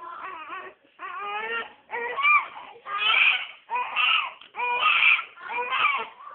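A five-week-old newborn baby boy crying in a string of about seven short wails, one after another. The wails grow louder in the middle. He is crying from being swaddled, wanting to be held instead.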